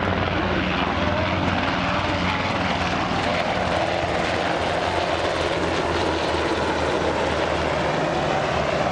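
Two UH-60J Black Hawk rescue helicopters flying past in formation: a steady drone of rotor blades and turbine engines.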